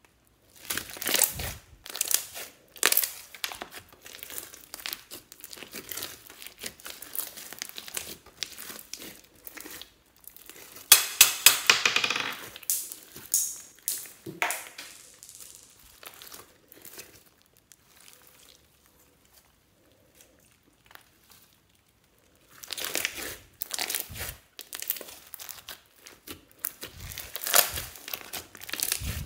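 Hands squeezing and stretching clear slime mixed with beads and kinetic sand, giving a rapid, irregular run of small pops and clicks. The popping is densest a little before halfway, dies away for a few seconds past the middle, then picks up again.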